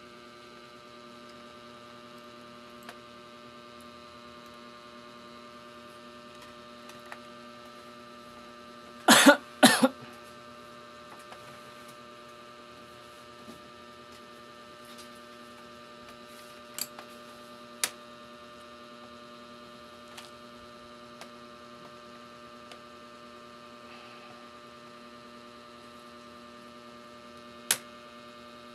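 Steady electrical hum with a stack of even tones, broken by two loud short noises close together about nine seconds in and a few light clicks later on.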